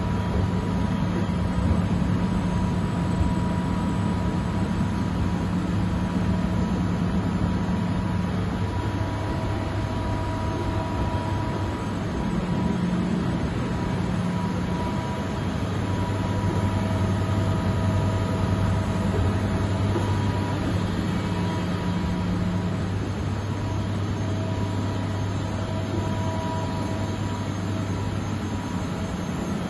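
Steady low electrical and machinery hum in a machine hall. A second, higher hum cuts in and out every few seconds, with a faint thin tone above it.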